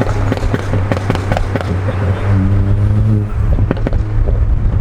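Car engine under hard acceleration with a loud exhaust: a steady engine drone overlaid by a string of sharp exhaust pops and crackles that come thicker in the second half.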